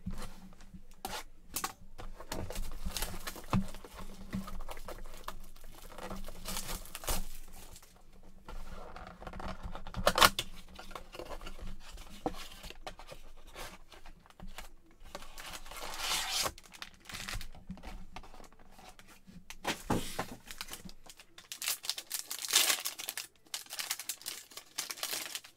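A cardboard blaster box of Panini Mosaic basketball cards and its foil card packs being torn open and handled: irregular bursts of tearing and crinkling.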